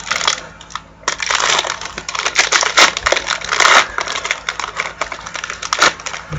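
A trading card pack's wrapper crinkling and tearing as the pack is opened by hand, in irregular rustling bursts.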